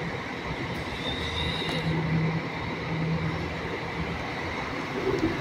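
Engine of a Marcopolo G8 double-decker coach running as the coach pulls slowly past and turns, a steady low rumble with tyre and exhaust noise. A brief high squeal comes about a second in.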